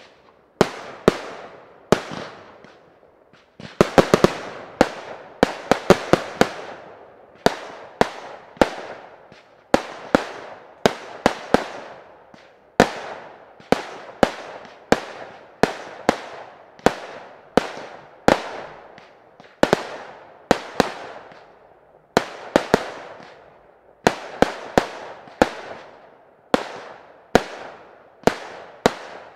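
Display fireworks fired from batteries: a steady run of sharp bangs, about one to two a second, each fading away in a long echo, with a quick cluster of bangs around four to six seconds in.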